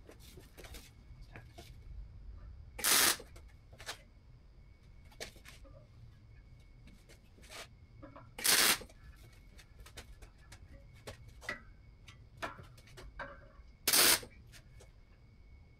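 MIG welder laying three short tack welds, each a half-second burst of arc crackle, about five seconds apart. Small clicks and taps of metal being handled come between the tacks.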